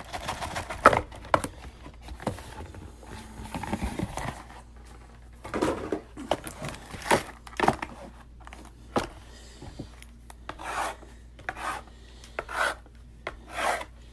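Hands handling and opening a sealed trading card box: cardboard and wrapper rubbing and rustling in irregular strokes, with scattered light knocks.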